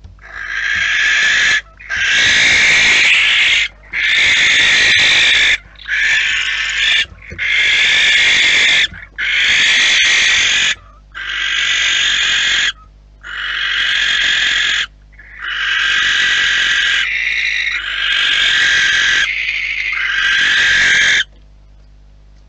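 Barn owls screeching: a run of about eleven long, harsh calls, each a second and a half to two seconds, one after another with short breaks, stopping shortly before the end. The calls are aggression between two barn owls fighting over the nest box entrance.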